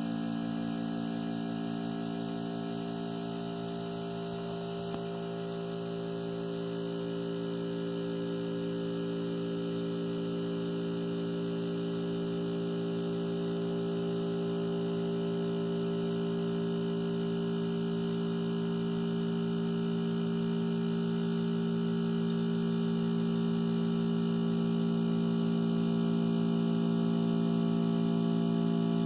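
Harvest Right freeze dryer's refrigeration compressor running with a steady electrical hum, slowly growing a little louder.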